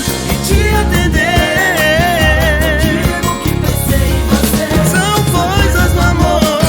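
Music: a stretch of the song without sung lyrics, with a steady bass and beat under a lead melody that wavers in pitch.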